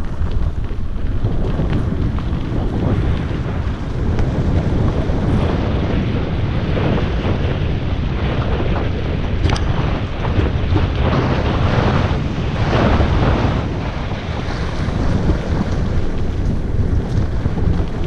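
Wind buffeting the microphone of a helmet-mounted camera on a fast mountain-bike descent, over the rumble of tyres on a dirt trail. Frequent short knocks and rattles from bumps, thickest in the middle stretch.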